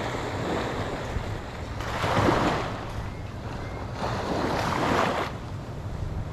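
Small waves breaking on a sandy beach, two swells of surf about two and a half seconds apart, with wind buffeting the microphone.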